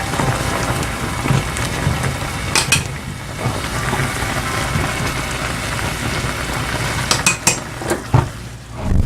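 A steady hiss of ramyun noodles and broth being worked with metal utensils. Sharp clinks of utensils against the pot or bowl come twice about two and a half seconds in, then several more from about seven seconds on.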